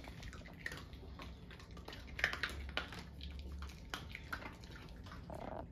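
Faint scattered clicks and taps from two small dogs moving about on a wooden floor and rug.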